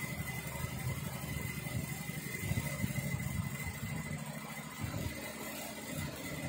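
Industrial single-needle lockstitch sewing machine running, stitching fabric at speed with a fast, even stitch rhythm. It pauses briefly about four seconds in, then runs again in short spurts as the seam is guided. A faint steady high whine sits over it.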